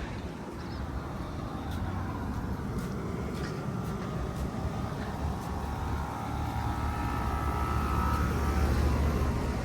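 Outdoor air-conditioner/heat-pump condenser units running, a steady low hum of compressor and condenser fan.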